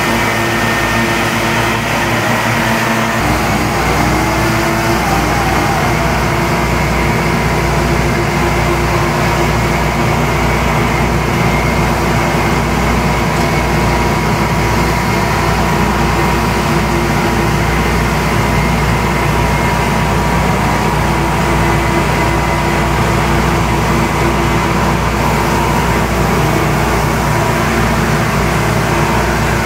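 Gas-engine leaf blowers, a backpack blower and walk-behind wheeled blowers, running steadily with a loud engine drone and whine. A deeper engine drone swells in about three seconds in and then holds steady.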